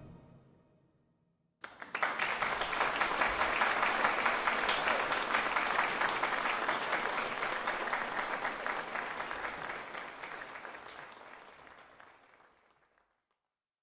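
The last chord of a wind ensemble dies away, then an audience applauds from about a second and a half in, the clapping fading out near the end.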